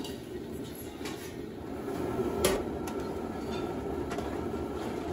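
Steady low rumble of a gas stove burner heating a large aluminium pot of curry gravy, with a slotted ladle knocking lightly against the pot a few times as the gravy is stirred, the clearest knock about halfway through.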